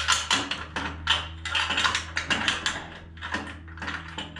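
Rapid, irregular metallic clicking and scraping as a chrome Cobra exhaust pipe is worked by hand onto a motorcycle's exhaust studs. A steady low hum runs underneath.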